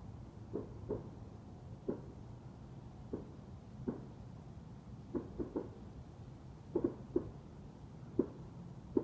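Distant pops, about a dozen short muffled ones at an uneven pace of roughly one or two a second, some in quick pairs or threes, over a low steady hum.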